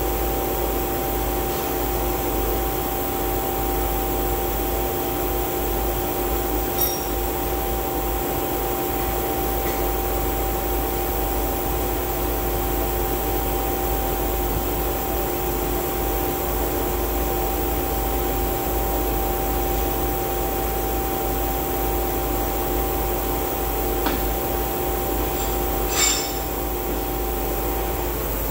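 Large DC motor running steadily, a constant hum carrying two steady tones, with a couple of light clicks; the tones cut off near the end as the motor is shut down.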